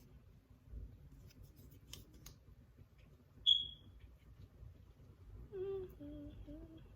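Faint handling sounds with a few soft clicks, a single short high-pitched squeak about halfway through, then a woman humming a tune near the end.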